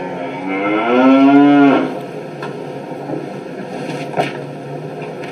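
A man's loud, drawn-out moan put on as a mock sex noise: one long call of a little over a second, starting about half a second in, its pitch climbing slightly and dropping off at the end.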